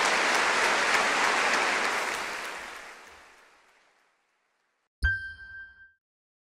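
Applause dying away over about four seconds. After a second of silence, a single short electronic ding with a low thump rings out and decays within a second.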